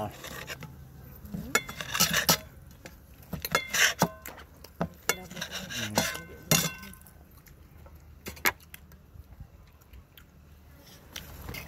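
Eating utensils clinking against dishes during a meal: a scatter of sharp clinks, some ringing briefly, growing sparse after about seven seconds.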